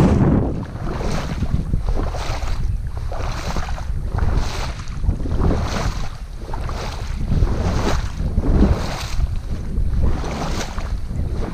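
Boat moving through shallow marsh water, with wind buffeting the microphone and a regular swish of water about twice a second.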